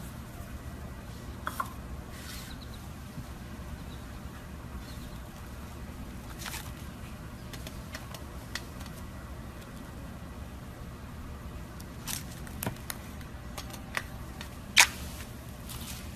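Slime being pressed and stretched by hand, giving scattered small sticky clicks and pops, with one sharp, louder pop near the end. A steady low hum runs underneath.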